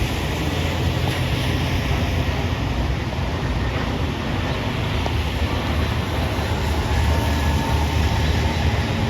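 Steady street traffic noise on a wet road in the rain: a continuous low rumble of vehicles with a hiss over it.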